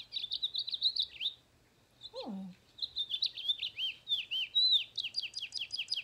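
House finch song played from a sound book's small speaker: a short burst of bright warbling at the start, then a longer warbling phrase from about three seconds in that turns into a fast run of repeated notes.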